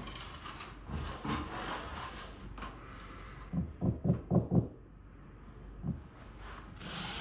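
Shuffling and knocks on a stepladder, with a quick run of about five loud knocks around four seconds in. Near the end a 12-volt cordless drill starts up, boring a hole into a plasterboard wall.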